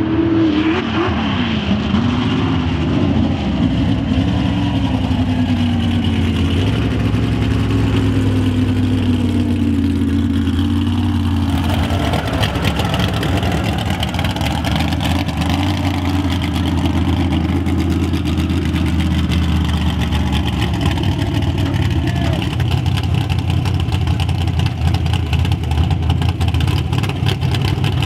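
Mega truck engine revving and running hard under racing load, its pitch rising and falling with the throttle.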